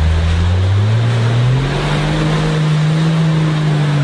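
Lifted Toyota Land Cruiser's engine revving up under load as it churns through mud: the pitch rises over the first second or so, then holds steady. Over it runs a rushing noise of the big tyres throwing mud.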